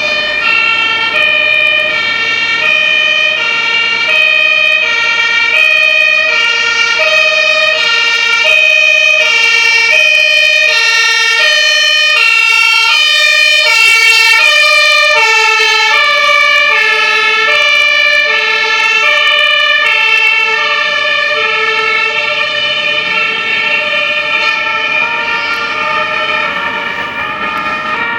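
Fire service vehicles running a German two-tone siren (Martinshorn), alternating between two pitches as they approach and pass. It is loudest and shifts in pitch about halfway through, then fades.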